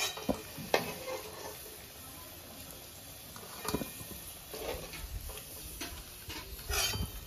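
Fried potato wedges being lifted out of hot oil in a wok with a metal spoon: the oil sizzles steadily, with several sharp clinks of the spoon against the wok and the steel plate.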